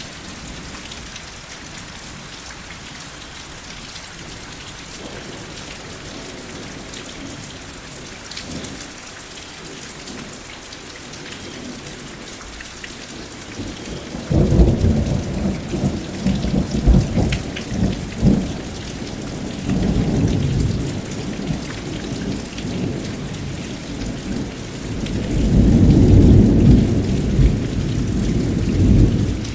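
Steady rain with thunder: for the first half only the rain, then a sudden thunderclap about halfway through, followed by rolling rumbles that come and go, with the loudest roll near the end.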